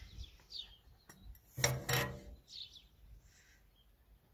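Small metal tin of Vaseline Lip Therapy being opened: two short scrapes of the lid coming off, about a second and a half in and half a second apart, with birds chirping faintly.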